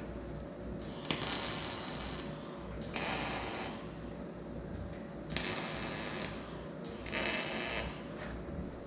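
Arc welding on a steel frame: four short welding bursts, each about a second long, separated by brief pauses, over a steady background hum.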